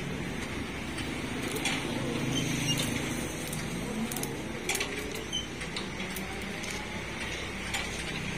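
A motor vehicle engine running nearby, its pitch rising and falling, with scattered light clicks over a steady background hum.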